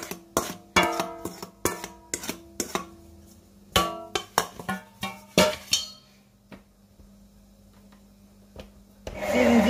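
A quick run of sharp, ringing metal knocks, a stainless steel cup tapped against the stand mixer's steel bowl to shake out the last of the flour, dying away after about six seconds. About nine seconds in, a louder steady noise starts.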